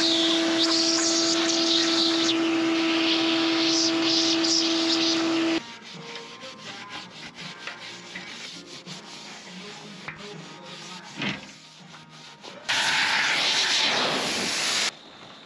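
Shop vacuum running with a steady whine, sucking debris out of a window channel, then cutting off abruptly about five and a half seconds in. Light scraping and clicking follow in the channel. Near the end, a compressed-air blow gun hisses for about two seconds.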